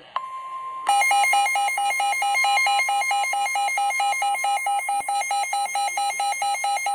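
NOAA Weather Radio alert for a tornado warning: a click, then the broadcast's steady 1050 Hz warning alarm tone, and from about a second in the receiver's own loud electronic alarm beeping rapidly, about four to five beeps a second.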